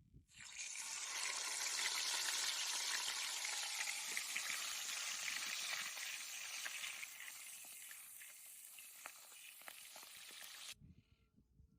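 Food sizzling as it fries in hot oil: the sizzle starts suddenly, is loudest in the first few seconds, then slowly dies down and cuts off abruptly about a second before the end.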